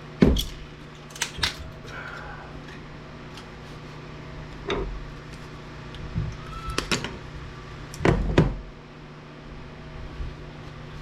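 Irregular knocks and clatter of hard plastic casing parts and small circuit boards being handled and set down while a UPS is broken apart for scrap, with a steady low hum underneath.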